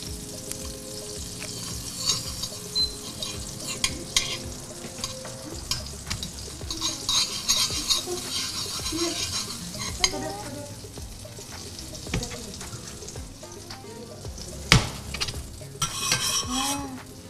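Butter sizzling as it melts in a stainless steel frying pan, stirred and scraped round with a metal utensil, with small clinks against the pan. A sharper clink near the end.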